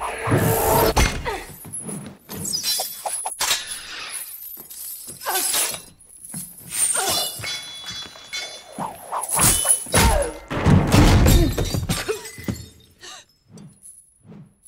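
Movie fight sound effects: a series of crashes, heavy thuds and breaking glass. The loudest crashes come about a second in and again around ten to twelve seconds in, and it goes quieter near the end.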